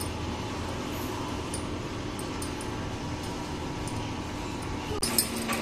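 Steady background hum and hiss, with faint soft rubbing and a few light ticks from a ball of dough being rolled under the palm on a wooden board.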